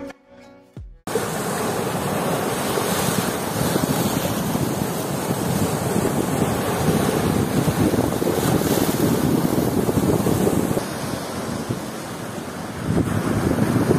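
Sea waves breaking and washing along a rocky shore, with wind buffeting the microphone; the surf swells louder near the end. The tail of some music cuts off about a second in.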